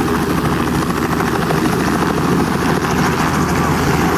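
Helicopter running close by: a loud, steady, rapid rotor chop.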